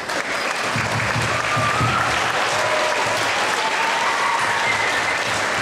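Audience applauding, starting at once and holding steady.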